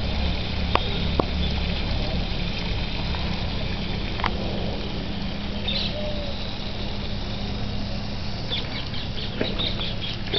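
Water spraying from the jets of a hose-fed peacock-shaped garden fountain and splashing onto the wet ground: a steady hiss. Near the end, a run of quick high chirps.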